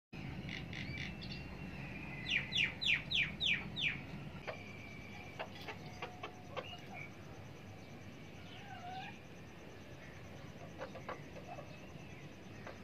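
Domestic chickens calling and clucking, with a quick run of six high, falling chirps between about two and four seconds in, the loudest sound. Scattered short clicks and softer calls follow.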